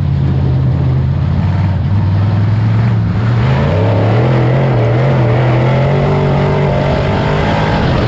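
Race car engine running loud and steady, then about three seconds in its pitch climbs and wavers up and down as the throttle is worked.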